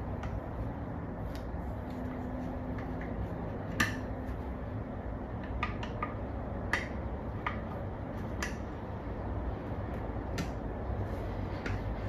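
Steel tire spoons clicking and clinking against a spoked dirt bike wheel rim as the tire bead is levered on. There are about nine sharp, scattered clicks over a steady low background noise, the loudest about four seconds in.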